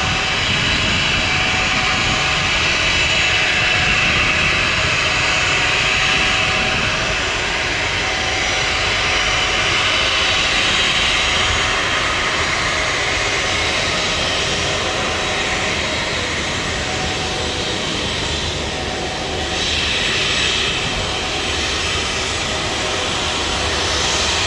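Twin jet engines of a Boeing 737 running steadily at taxi power, a continuous jet whine over a broad roar.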